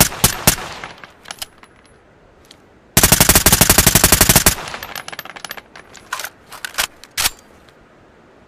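Suppressed ARN-180 assault rifle firing: two single shots in the first half-second, then a rapid automatic burst lasting about a second and a half, about three seconds in. Scattered light metallic clinks follow the burst for a few seconds.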